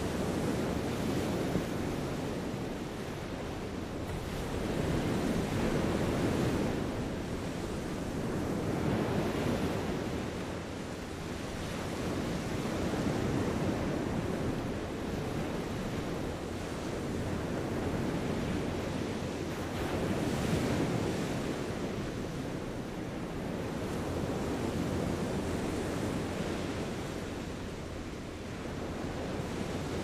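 Small waves washing onto a sandy beach: a steady surf hiss that swells and eases about every four seconds.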